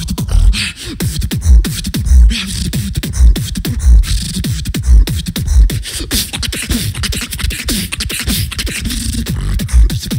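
Beatboxer performing a beat into a microphone over a PA: heavy bass kick sounds roughly every half second to second, with sharp snare and hi-hat clicks and falling bass tones in between.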